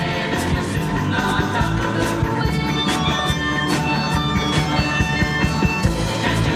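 Surf-rock song playing with a steady drum beat.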